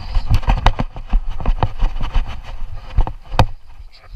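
Hurried footsteps on leafy woodland ground, with the knocks and rubbing of a chest-strapped camera jolting at each stride; a few sharper knocks stand out, the loudest near the end.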